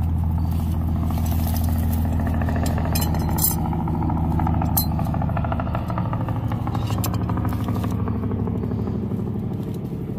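An engine running steadily at a constant low hum, easing slightly after about six seconds, with a few sharp clicks or knocks about three, five and seven seconds in.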